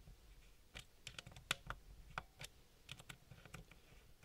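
Scattered, irregular light clicks and ticks of pliers gripping and turning a screw extractor counterclockwise, one click a little louder about a second and a half in, as the extractor backs a broken screw out of a wooden board.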